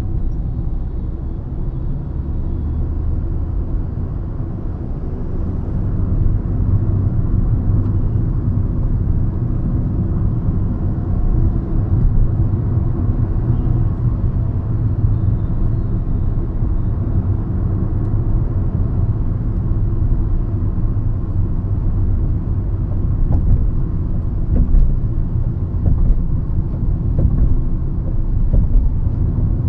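Hyundai i20 driving on the road, heard from inside the car: a steady low rumble of engine and tyre noise that swells slightly a few seconds in, with a few louder bumps and light clicks near the end.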